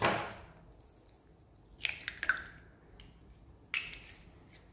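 Hen's eggs being cracked open over a bowl: a sharp crack of shell at the start, then a few smaller cracks and clicks as the shell is broken and pulled apart.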